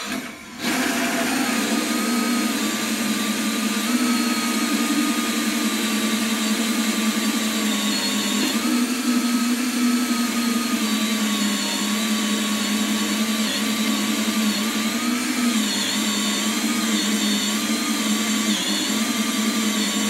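Cordless drill running steadily while boring a hole through wood, its motor pitch wavering slightly as the bit bites. It starts about half a second in and keeps running without a pause.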